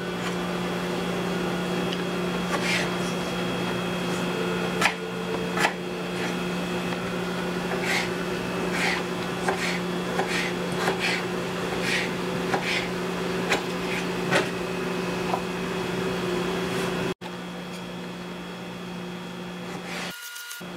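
A knife slicing raw potato on a plastic cutting board: irregular sharp cuts and taps of the blade against the board, about one a second in places, over a steady low hum. The whole background drops quieter about three-quarters of the way through.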